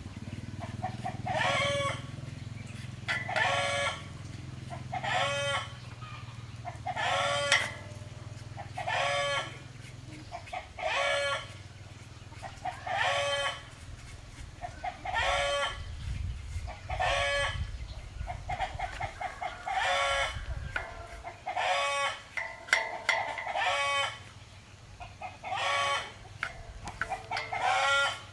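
A chicken calling over and over, one short call every second or two. A low rumble sits underneath for a few seconds in the middle.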